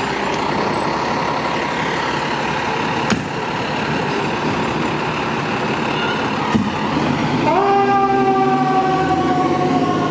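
Fire engine's diesel engine pulling away, with two sharp clicks about three and six and a half seconds in. Then, about seven and a half seconds in, a Federal Signal e-Q2B siren winds up quickly and slowly winds down, imitating the mechanical Q2B.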